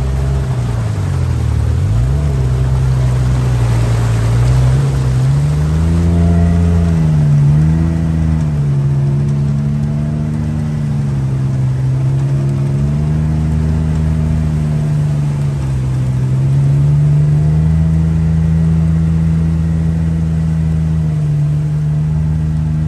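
Vehicle engine running under way, its pitch falling and rising again and again as the throttle changes, with a sharp dip about two seconds in and a steadier, higher stretch in the second half.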